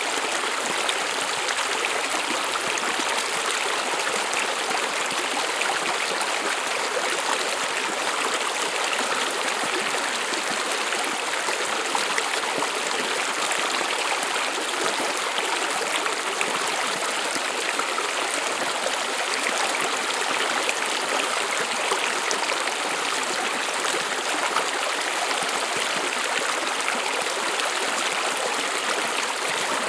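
A small stream flowing steadily: an even rushing and trickling of water, mostly hissy and high with little low rumble, unchanging throughout.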